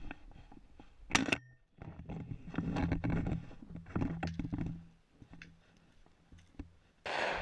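Rubbing and handling noise on a camera mounted to a shotgun as the gun swings, with one sharp crack about a second in. Near the end a shotgun shot goes off suddenly and loudly and rings on.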